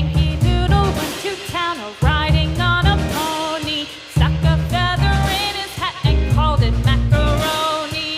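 Background music: a lead melody with bending, wavering notes over a heavy bass line that drops out and comes back about every two seconds.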